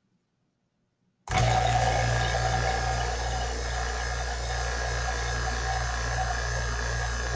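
Near silence, then about a second in an electric vacuum pump switches on and runs with a steady hum, pumping the air out of a glass bell jar.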